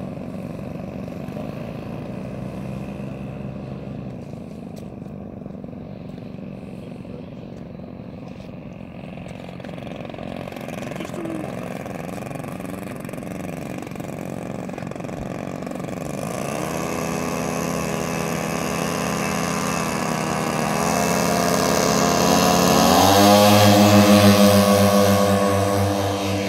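Radio-controlled model aircraft's engines running at low throttle, then opened up about sixteen seconds in. The pitch climbs in steps as the model accelerates on its take-off run. The sound is loudest as it passes close near the end, then the note drops as it goes by.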